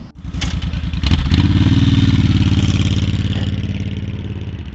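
Suzuki Intruder's V-twin engine pulling away. It comes up in revs about a second in, then fades as the bike moves off. The engine is burning oil heavily, which a mechanic puts down to a bad head gasket.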